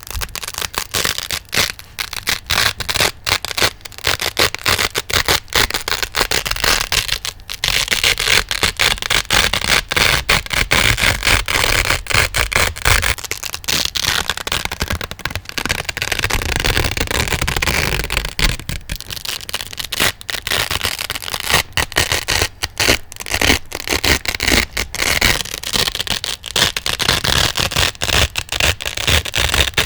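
Velcro hook-and-loop fastener ripped and scratched close to the microphone: a dense, crisp crackle with many brief breaks.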